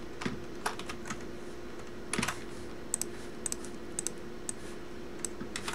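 Scattered, irregular clicks of a computer keyboard and mouse during copying and pasting between browser tabs, with a small cluster of keystrokes about two seconds in. A faint steady hum runs underneath.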